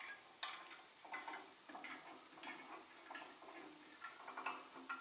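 Faint, light clicks and taps of hand-handling noise, irregularly spaced, about one every half second to a second.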